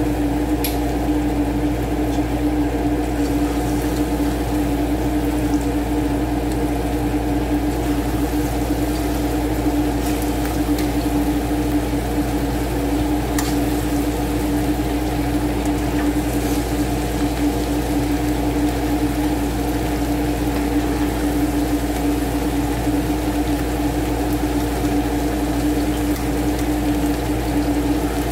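Breaded chicken pieces deep-frying in hot oil in a stainless steel pot, the oil bubbling and sizzling steadily with a few faint pops, over a steady low hum.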